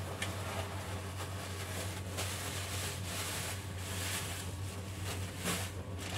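Thin plastic grocery bag rustling and crinkling in irregular bursts as it is handled, over a steady low hum.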